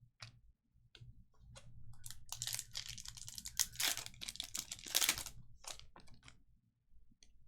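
Trading cards and their packaging being handled: a few light clicks, then about three seconds of crinkling, rustling and tearing from about two seconds in, with more clicks as it dies away.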